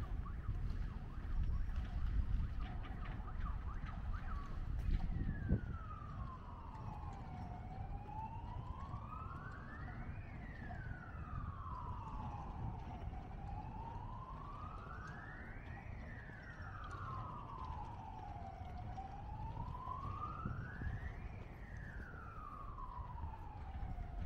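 Emergency vehicle siren on a slow wail, its pitch rising and falling about every five and a half seconds, over a steady low background rumble.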